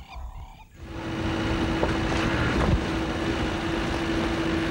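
A four-wheel-drive vehicle driving over rough ground, heard from inside: steady engine and road noise with a constant low hum. It starts about a second in, replacing quieter outdoor sound.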